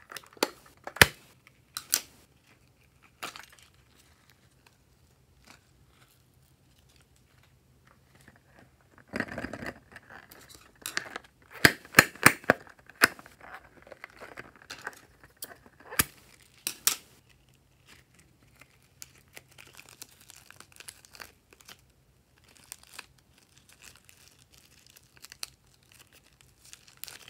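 Scissors snipping into a rubbery squishy toy, a few sharp clicks early on and a denser run of clicks and rustling in the middle. Near the end, plastic wrapping crinkles as it is peeled off.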